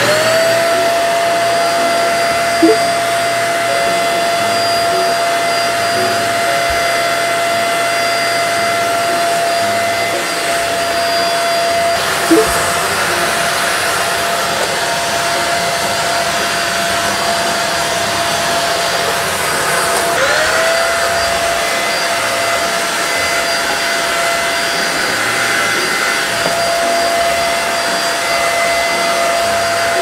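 Deerma DX700 corded stick vacuum cleaner switching on with a rising whine, then running steadily with a high motor whine and a rush of suction. Its whine dips and climbs back about two-thirds of the way through, and two short knocks come early on and near the middle.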